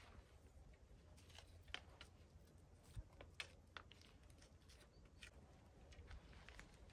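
Near silence, with faint scattered clicks and rustles of a wooden Osage orange short bow being handled and strung by hand, over a low steady rumble.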